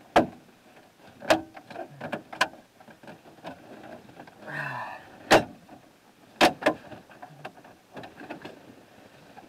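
Plastic dash trim bezel of a 2004 Chevy Silverado being pressed back into place by hand: a series of sharp clicks and knocks as the trim clips snap home.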